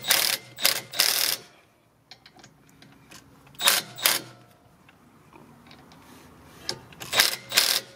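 Hand-tool work on a 2012 Hyundai Tucson's front brake caliper, metal on metal: short rasping, scraping bursts, several in the first second and a half, one a little after three and a half seconds and two more near the end, with quiet gaps between.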